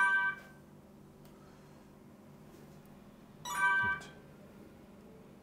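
Photo booth kiosk touchscreen giving two short electronic chime tones as its buttons are tapped, one at the start and another about three and a half seconds in, over a faint steady hum.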